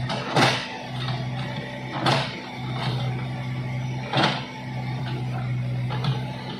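Background music with guitar: a plucked or strummed chord about every two seconds over a steady low sustained tone.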